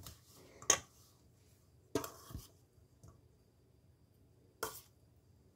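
A metal spoon scooping samosa filling from a stainless steel bowl: three short scrapes and clinks, the last about three-quarters of the way through.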